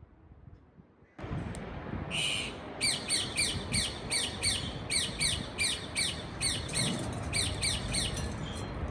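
Parakeet calling: after a quiet start, one call and then a fast run of short, high, falling squawks, about three or four a second, over a steady background hiss that comes in about a second in.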